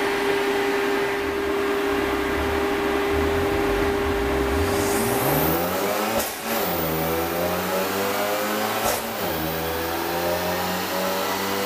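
Car engine under load on a chassis dyno, revving up through the gears: the revs climb from about four seconds in, fall back at an upshift about six seconds in and again about nine seconds in, then climb again. Before the revs rise there is a steady hum over the running engine.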